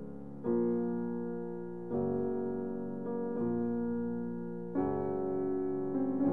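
Background piano music: slow, soft chords, a new one struck about every one and a half seconds and left to ring out.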